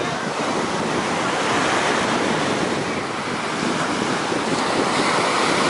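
Ocean surf breaking and washing up on the beach in a steady rush, with wind on the microphone.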